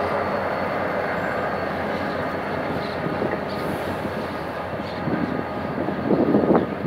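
Passenger train hauled by a GM GT22CW-2 diesel locomotive pulling out of a station. The locomotive's engine is heard going away at first, while the coaches roll past close by with a steady rumble of wheels on rail. From about five seconds in the wheel noise turns rougher and clattering as the coaches cross the rail joints.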